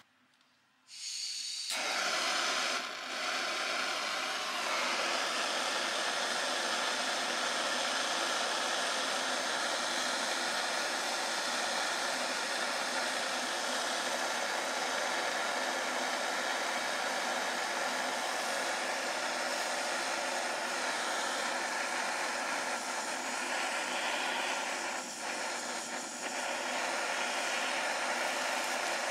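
Handheld kitchen blowtorch starting about a second in, then a steady hiss of its flame as it caramelizes the sugar on top of a crème brûlée.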